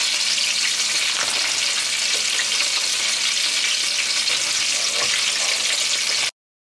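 Cream sauce of butter and half-and-half sizzling and bubbling in a pan on the stove, stirred with a wooden spoon. The sizzle is steady, then cuts out abruptly near the end.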